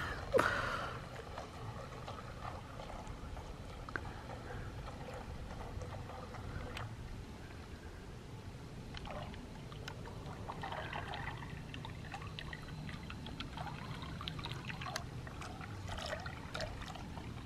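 Small RC model destroyer boat under way: a faint steady wash of water with the light hum of its twin small electric motors.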